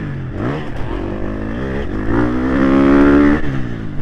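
Motocross bike engine under changing throttle: the pitch falls off, then climbs hard to its loudest and highest before the throttle is chopped and the pitch drops sharply near the end.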